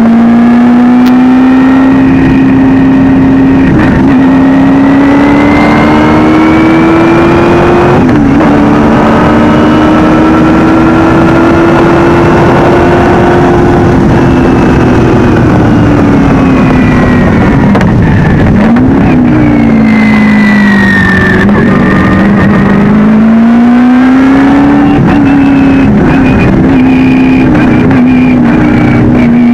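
Shelby Can-Am race car's 3.3-litre V6 under hard load, heard very loud and close from a rear-mounted camera. The engine note climbs steadily, dips briefly at an upshift about eight seconds in, holds along the straight, then falls and wavers through downshifts under braking around eighteen to twenty-one seconds in before climbing again out of the corner.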